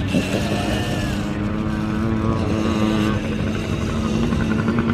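Dirt bike motors running on a motocross track: a steady drone, with higher tones that rise and fall as the bikes speed up and slow down.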